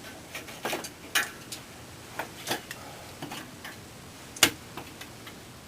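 Metal hemostat clicking and scraping inside a wall outlet box as it probes for dead birds: irregular light ticks and knocks, with one sharp click about four and a half seconds in.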